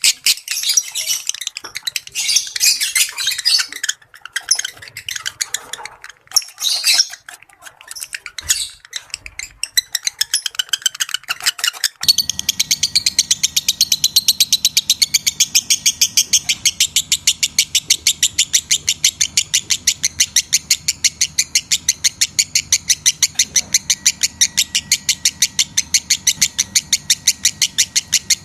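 Lovebird calls: irregular high, shrill chirping and chattering, then, about halfway through, a sudden switch to a fast, even run of repeated shrill chirps that goes on unbroken.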